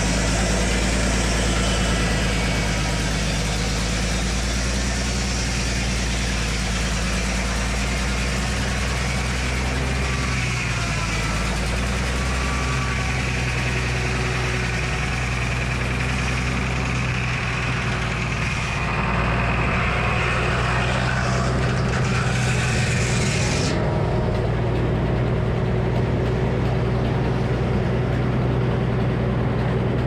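Frick sawmill's circular blade sawing through a locust log, a high hissing cut over the steady run of the mill's power unit. The cutting noise stops abruptly about three-quarters of the way through, leaving the engine running and the blade spinning free.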